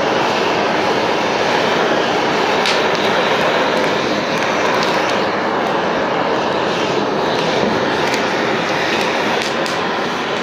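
Hose-fed gas blowtorch flame burning with a steady hiss while it heats old laminate to loosen its glue, with a few sharp ticks scattered through as a scraper lifts the softened sheet.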